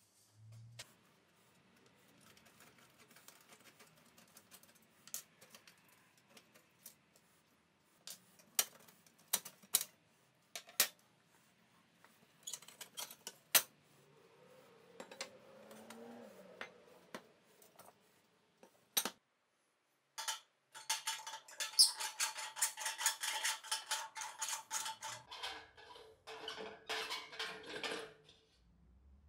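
Hand-handled metal and glass lamp parts: a steel lens rim holding cracked glass and a sheet-metal reflector housing give scattered clinks and knocks, then a dense run of rapid rattling clinks with a ringing note near the end.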